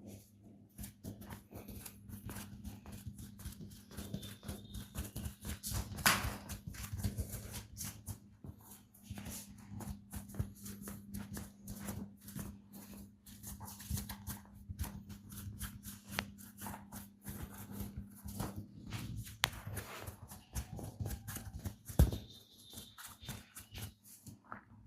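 Hands massaging skin close to the microphone: a dense run of rubbing and crackling clicks, with two loud sharp snaps, about six seconds in and near the end, over a steady low hum.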